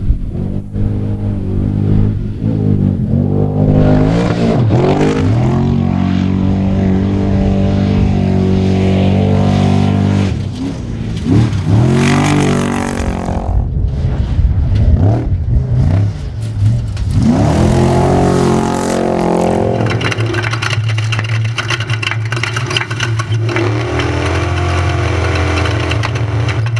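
Off-road race truck engine revving hard, its pitch dropping and climbing again several times as the throttle comes off and back on, with a rougher, rattling stretch near the end.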